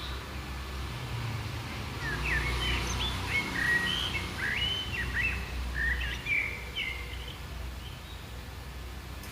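Bird chirping in a quick, jumbled run of short, varied notes for about five seconds, over a steady low background rumble.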